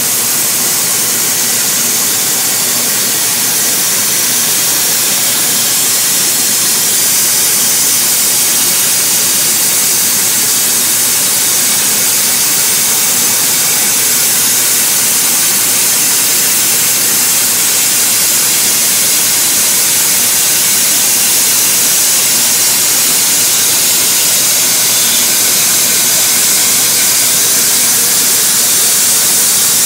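KOMO CNC router running as it machines a curved wooden headboard piece, giving a steady, loud hiss with no breaks.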